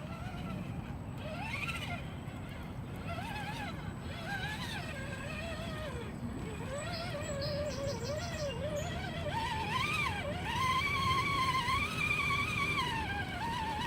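RC crawler's electric motor whining, its pitch rising and falling as the throttle changes, over a steady low rumble of the drivetrain and tyres. The whine grows louder and higher in the second half.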